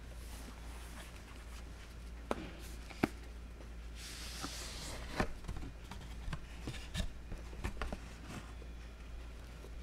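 Handling of a large-print NASB Bible and its box: a few scattered taps and knocks of the book and box, with a short rustle or slide about four seconds in, over a low steady hum.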